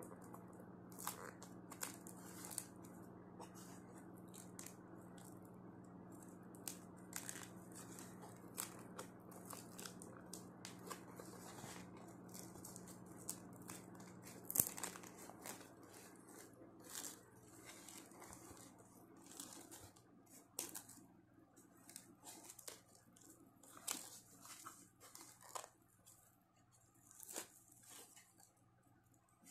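Clear plastic stretch wrap being peeled and torn off a chrome-finished plastic knee tank pad: irregular crinkling and crackling of the film, with one sharper crackle about halfway through.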